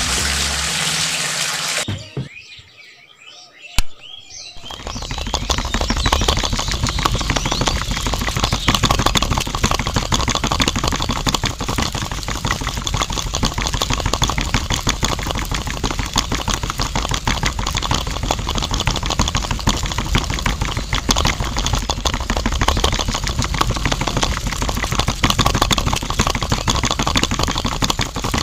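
Water poured into flour in a small container for about two seconds, then a click, and a small electric motor starts about four and a half seconds in, running steadily as it drives a miniature mixer churning the batter.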